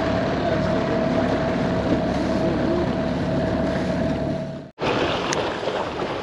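Small aluminium boat under way: its motor runs with a steady whine over water rushing past the hull and wind on the microphone. About three-quarters of the way through, the sound drops out for an instant; afterwards the water and wind continue without the whine.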